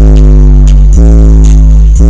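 A rap beat plays at full volume on a car stereo, its bass coming from four AudioQue HDC4 subwoofers (two 18-inch, two 15-inch) and filling the vehicle cabin. Deep bass notes slide down in pitch, a new one about every second, under sharp high ticks.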